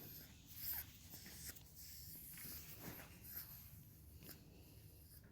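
Near silence, with a few faint, soft rustles and taps.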